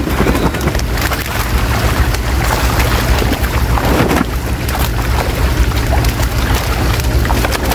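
Many fish thrashing and splashing in shallow water inside a seine net as they are grabbed by hand, a busy run of irregular splashes and slaps, over a steady low wind rumble on the microphone.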